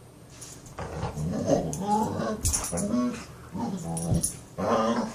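Australian Shepherd making funny vocal noises: a run of about four drawn-out, wavering calls, beginning about a second in.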